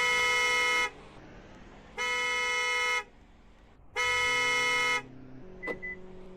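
Hyundai car's anti-theft alarm sounding the horn: three steady one-second honks, one every two seconds, then it stops.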